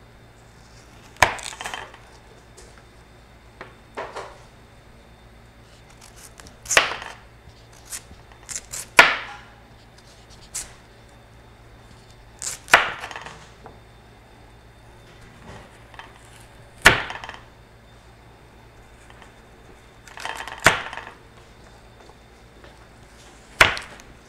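Kitchen knife slicing raw sweet potato into thin strips, a sharp knock with each cut, coming irregularly a second to several seconds apart, some in quick pairs or clusters, a few followed by a short scrape.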